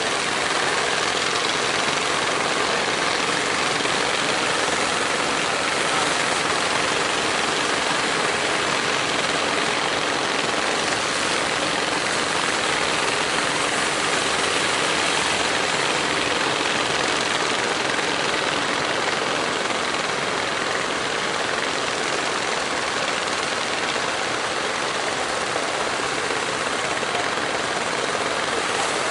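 Engines of several wooden fishing boats running under way, blended into a steady rushing noise of surf and wind.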